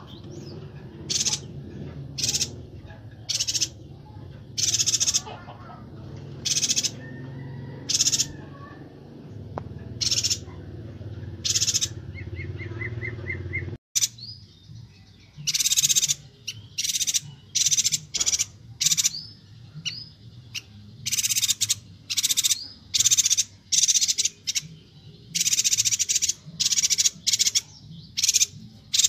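Chestnut-crested yuhina (Bornean yuhina) calling repeatedly in short, high-pitched chirps, about one a second at first and then in quick runs. A low background hum stops at a sudden cut about halfway.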